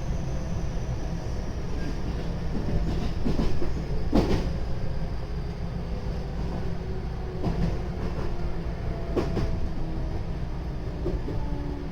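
JR West 223 series 0 electric train running, with its Toshiba GTO-VVVF inverter whining in faint tones that slowly fall in pitch as the train slows. Under it is the steady rumble of the wheels on the rails, with a few clacks over rail joints.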